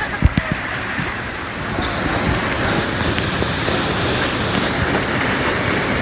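Steady rushing noise of water and wind buffeting the microphone, with a few low knocks in the first half second.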